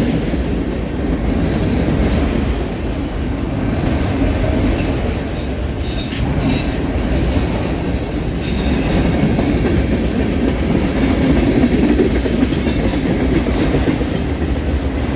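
Freight train cars rolling steadily past: a continuous rumble of steel wheels on the rails, with some clatter.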